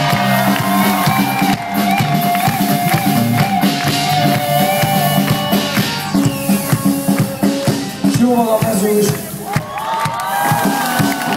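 Live rock band playing loud through a PA: drum kit, electric guitars and bass, with a wavering melody line over them, as heard from within the audience.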